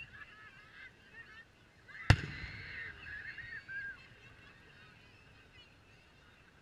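A single sharp firework bang about two seconds in, with a brief low rumble after it, over a faint background of many short wavering calls.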